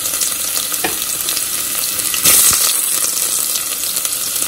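Sliced garlic sizzling in hot oil in a stainless steel pot, the first stage of a baghaar (tempering): a steady crackling hiss, with a brief louder burst a little past halfway.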